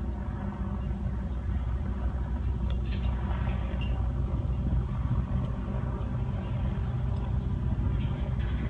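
Airship's engines droning steadily, a low hum.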